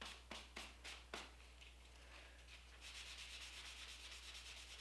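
Faint rubbing of an acetone-soaked rag wiping steel strips to remove oils: a few quick strokes at first, then a steadier stretch of rubbing in the second half.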